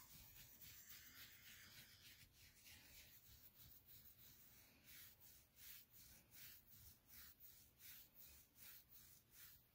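Faint rhythmic rustle of a hand scratching a dog's belly fur, at about two strokes a second.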